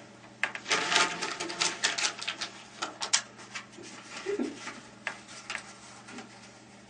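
Cork filings poured from a folded sheet of paper into the end of a Kundt's tube: a rapid run of light rattling ticks and paper rustles. It is thickest over the first few seconds and grows sparser after about three seconds.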